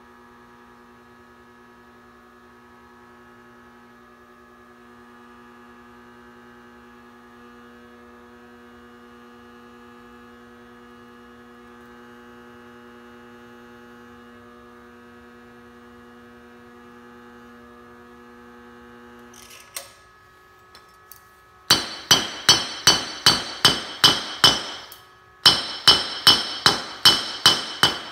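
Homemade 3 kW induction heater humming steadily under load while it heats a steel bolt red-hot; the hum stops about two-thirds of the way through. A couple of seconds later a hammer starts striking the hot bolt on a small steel anvil, with loud ringing blows at about three a second in two runs and a short pause between them.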